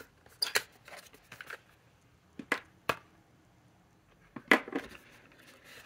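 Cardboard ink-bottle box and a fountain pen handled on a tabletop: a few short taps, clicks and scrapes, the loudest about three-quarters of the way through.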